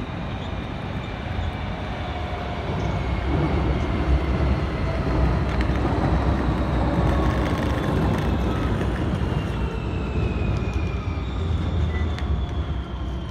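GVB 12G tram standing at a platform stop with its equipment running: a steady low rumble and hum. Faint high whines slowly fall in pitch through the second half.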